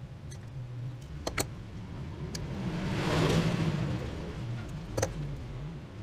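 Wire being handled and worked with hand pliers: a few sharp clicks and snips, and a rustling swell about three seconds in, over a steady low hum.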